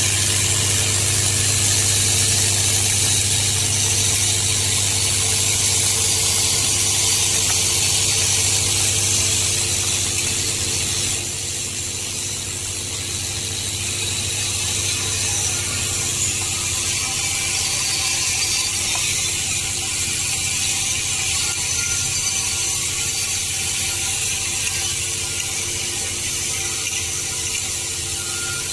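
Vibratory bowl feeder running: a steady low hum under a continuous dense metallic rattle of M5 hex-head bolts jostling in the steel bowl and travelling along its spiral track. The rattle drops slightly in level about eleven seconds in.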